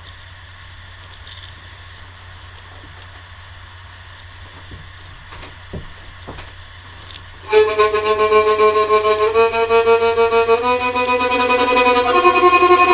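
A few soft knocks over a low steady hum, then about halfway through a violin starts being bowed: sustained notes that step from one pitch to the next every second or so.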